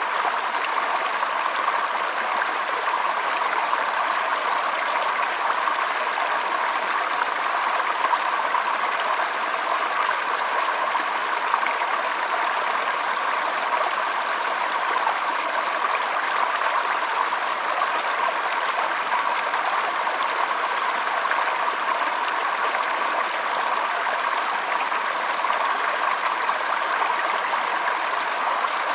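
Flowing water: a steady, even rushing that does not change.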